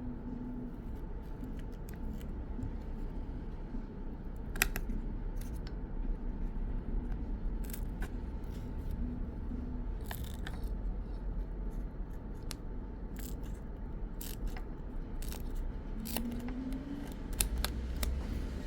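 Small hand tools clicking and scraping against an iPhone 11's frame and screen edge as the glued display is pried open, with sharp irregular clicks over a faint steady hum.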